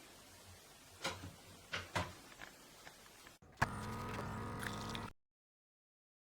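A few light clicks and knocks of a pod coffee machine being handled. After a brief cut, the machine hums steadily for about a second and a half, then stops abruptly, followed by dead silence.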